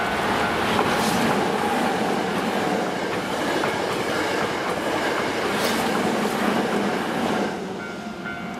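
Hankyu 8000 series electric train passing close by at speed, with the steady rush and rumble of its cars and wheels clicking over rail joints. The noise eases near the end as a repeating bell-like tone comes through again.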